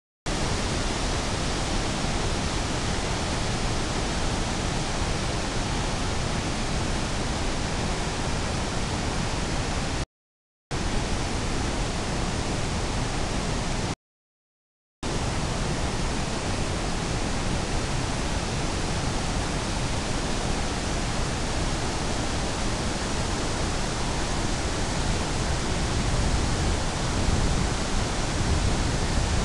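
River rapids and a waterfall rushing: a steady roar of whitewater. It cuts out completely twice for a moment, about ten seconds in and again about fourteen seconds in.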